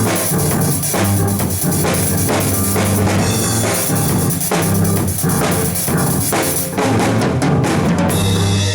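A band playing live: a drum kit keeping a steady beat over low bass notes. The playing stops abruptly near the end, leaving notes ringing.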